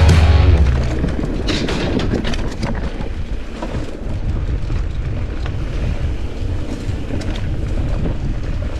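Santa Cruz Nomad mountain bike ridden fast, heard from the bike-mounted action camera: tyres rumbling and the frame and parts rattling, with a run of clattering knocks as it crosses a wooden plank footbridge, then the steady rumble of a dirt trail, with wind on the microphone. Background music cuts off about half a second in.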